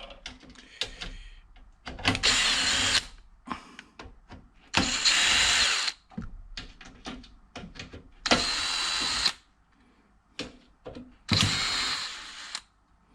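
Cordless drill/driver with a Torx T15 bit spinning in four short runs of about a second each, backing out screws from an old PC case, with small clicks and rattles of handling between the runs.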